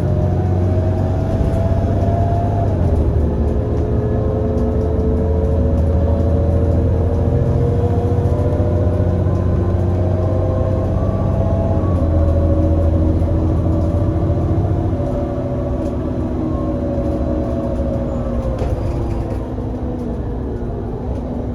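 Irisbus Citelis 18 GNC bus's Iveco Cursor 8 CNG six-cylinder engine and ZF Ecomat automatic gearbox accelerating, the whine climbing in pitch and dropping back at upshifts about 3 seconds in and about 12 seconds in. From about 15 seconds in it eases off and the whine falls in pitch as the bus slows, then climbs again near the end.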